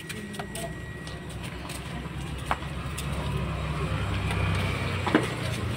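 An engine running with a steady low hum that grows louder over the first few seconds and eases off slightly near the end, with a few short clicks over it.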